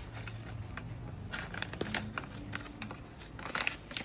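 Crinkling rustles and light irregular clicks as an RF cautery rubber patient pad and its Velcro strap are handled.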